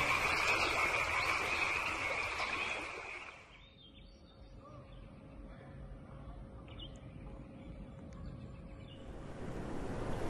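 Forest ambience: a steady high buzz for the first three seconds or so, then a quiet stretch with a few faint chirps, and a rising rushing noise near the end.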